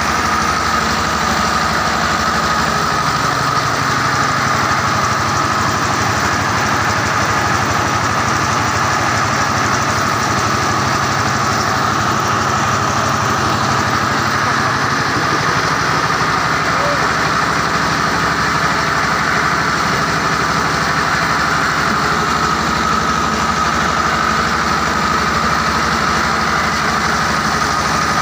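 Engine-driven mobile rice huller running steadily while milling paddy, the engine and belt-driven milling machine giving a continuous drone with a steady high whine. The engine note shifts about three seconds in and again about halfway through.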